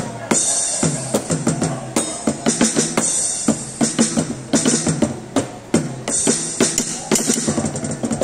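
Medeli electronic drum kit being played: a fast, busy run of kick, snare, tom and cymbal sounds from its sound module. The repaired pads are triggering again.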